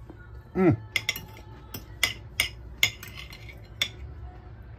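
Metal knife and fork clinking and scraping on a ceramic plate while cutting into an onion bhaji, about seven sharp clinks over three seconds. A brief falling vocal sound comes from the eater about half a second in.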